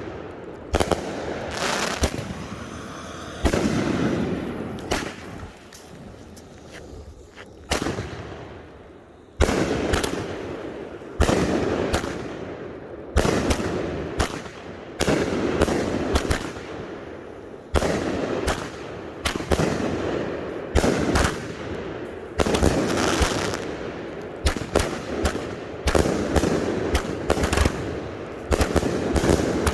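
Consumer firework cakes firing: a quick, irregular string of sharp launch thumps and aerial bursts. The shots thin out for a few seconds about a quarter of the way in, then come densely again.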